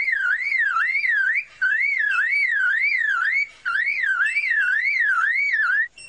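Superb lyrebird mimicking a car alarm: a whistle sweeping up and down in pitch about three times a second, in phrases broken by short pauses.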